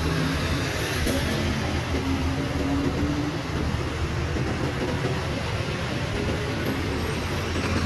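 City bus engines and street traffic: a city bus drives past close by, then a car passes while another bus approaches, with steady engine hum and tyre noise. The engine note climbs briefly about two seconds in.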